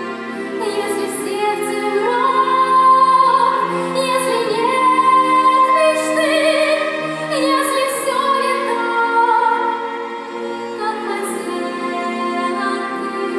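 A woman singing a song with musical accompaniment, holding long notes with vibrato.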